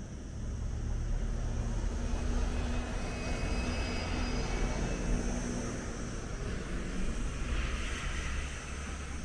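Diesel city bus engine running as it goes along the road, a steady hum that grows louder over the first couple of seconds, over a low rumble.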